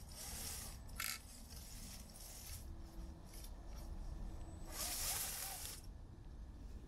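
An electric RC rock crawler's tyres scraping and crunching over dirt and rock in several rough spells, loudest about five seconds in, with a sharp tick about a second in and a faint motor whine near the middle.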